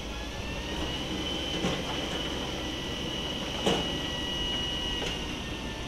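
Dump truck tipping its load of fill: a steady high-pitched whine over the running engine and the hiss of the falling material, with two thumps of dropping rock about two seconds apart, the second louder.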